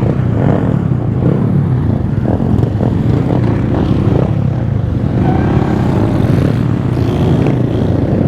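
Honda Grom 125cc single-cylinder minibike engine running and revving, its pitch rising and falling repeatedly as the bike is ridden.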